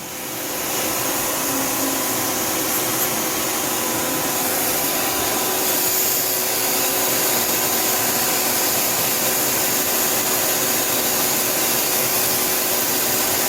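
Tsugami S206 CNC Swiss lathe with its Z axis being jogged: a steady mechanical whir with a few constant whining tones over it. It builds over the first second or so, then holds even.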